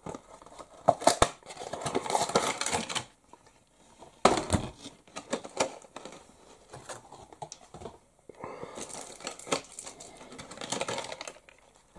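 Toy packaging being opened and handled: cardboard box and plastic tray clicking and crinkling in irregular bursts, with short quiet gaps between.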